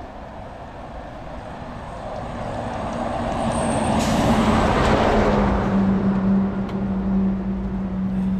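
A heavy truck passing on the road: its tyre and engine noise builds to a rush about halfway through, then settles into a steady low engine drone as it moves away.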